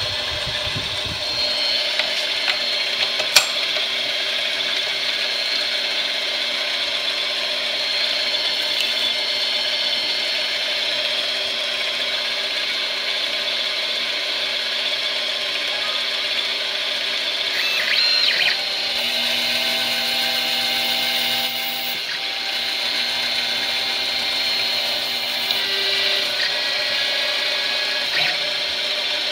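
Benchtop mini metal lathe running with a steady motor whine while the tool cuts the spinning workpiece. There is one sharp click about three seconds in, and the tones of the whine change for a few seconds past the middle.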